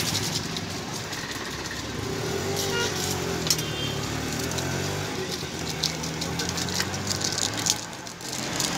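Busy street-stall background noise: a steady low rumble with occasional clicks and kitchen clatter.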